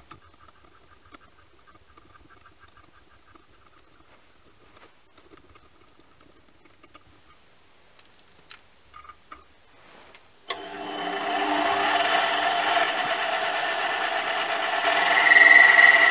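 Faint ticking and a light whir while a small drill bit bores into a metal block, then, about ten seconds in, a Chinese mini lathe comes in abruptly, running with a steady whine of held tones that grows louder near the end.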